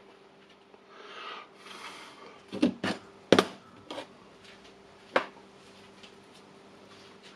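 A few sharp clicks and knocks of small tools being handled and set down on a workbench during soldering, the loudest about three and a half seconds in, over a faint steady hum.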